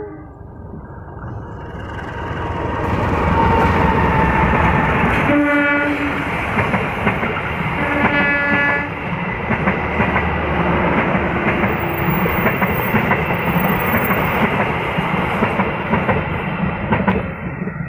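Passenger train running past close by: the rumble and clatter of its wheels on the rails builds over the first few seconds, stays loud, and eases off near the end. The locomotive's horn sounds two short blasts about two and a half seconds apart.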